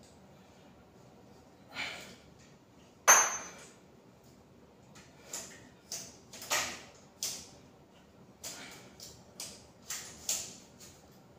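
Plate-loaded metal dumbbells clinking and knocking during a set of chest flyes. There is one sharp ringing clink about three seconds in, then a run of lighter knocks and clicks, about one or two a second, in the second half.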